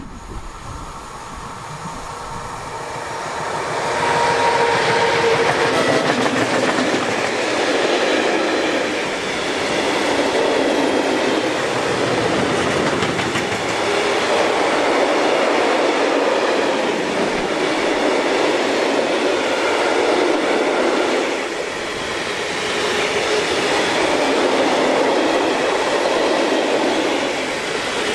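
Freight train passing: a six-axle Newag Dragon II electric locomotive comes up and goes by, growing louder over the first few seconds, then a long rake of tank wagons rolls past. The wheels on the rails make a continuous rumble and clatter that swells and eases as the wagons go by.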